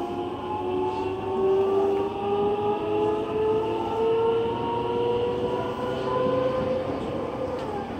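Nagoya Municipal Subway N3000 series train heard from inside the car as it slows for a station stop: the traction inverter and motors give a whine of several tones that glide slowly upward, over steady rolling noise.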